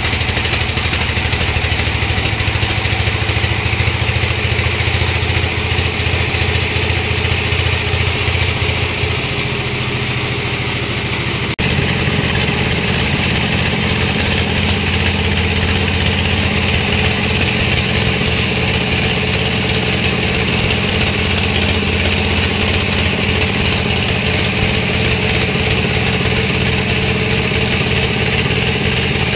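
Sawmill machinery engine running steadily with a low hum. The sound changes abruptly a little under halfway through, then runs on much the same.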